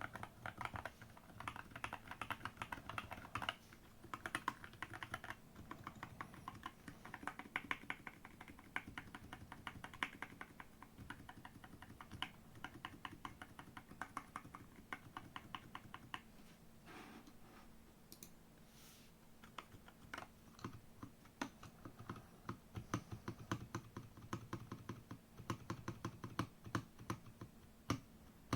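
Typing on a GK68 mechanical keyboard with JWK T1 Black switches and XVX keycaps: runs of rapid keystrokes, thinning to a few scattered presses a little past the middle before picking up again.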